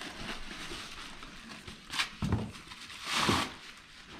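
Cardboard packaging being handled: a couple of knocks about two seconds in, then a rustling scrape about three seconds in.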